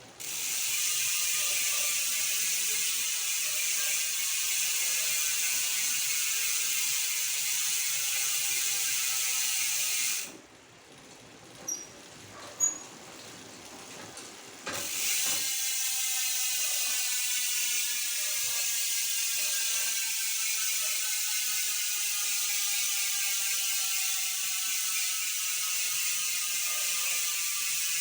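Speedone Torpedo 8-pawl rear hub freewheeling: the pawls click as a fast, even buzz while the spun wheel coasts, and the buzz slowly drops in pitch as the wheel slows. It breaks off about ten seconds in, with a couple of single clicks, then the wheel is spun again about five seconds later and the buzz runs on, again slowly falling.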